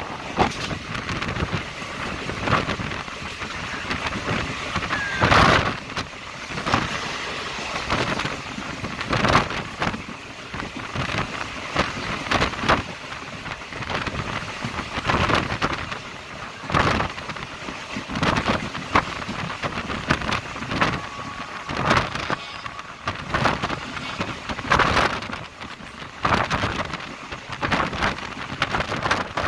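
Diesel-electric multiple unit (DEMU) train running at speed: a steady rushing noise with gusts of wind striking the microphone every second or two.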